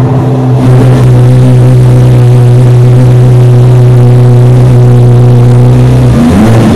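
2023 Chevrolet Corvette C8 Z06's flat-plane-crank 5.5-litre V8 running at a steady, fast idle just after start-up. Its pitch shifts near the end as the revs begin to move.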